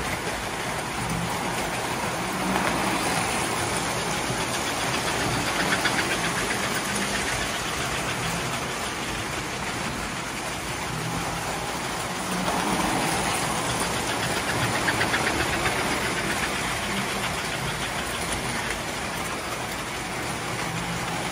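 Electric model trains running on metal tinplate track: a steady hum of the motors with the rattle and clatter of wheels on the rails. It swells louder twice as a train passes close by.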